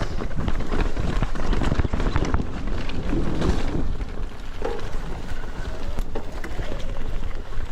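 Mountain bike ridden over rough trail, heard close up: a steady rumble of tyres and trail with many sharp knocks and rattles from the bike, and wind buffeting the microphone.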